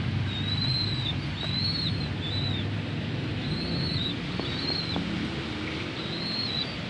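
Young pigeons (squabs) peeping: short, thin, high-pitched squeaks, each rising and falling, repeated about once a second with a short pause past the middle. A low wind rumble on the microphone runs underneath.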